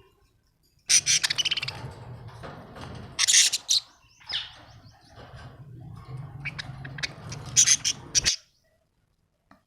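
Budgerigars chirping and squawking in sharp, loud bursts over a low steady hum. The sound starts about a second in and cuts off abruptly about a second before the end.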